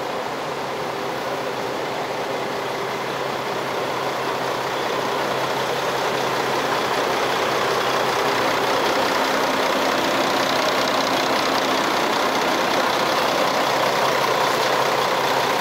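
Intercity coach's diesel engine idling: a steady low hum under a broad rush of engine and fan noise, growing gradually louder over the first half.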